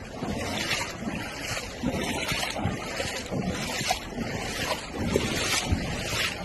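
Floodwater rushing and surging in waves, with wind buffeting the microphone.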